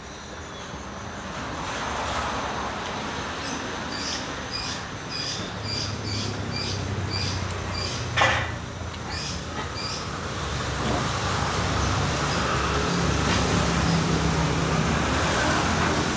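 Road traffic: a motor vehicle's engine running close by, its low hum swelling through the second half. There is a run of short high peeps in the middle and one sharp click about eight seconds in.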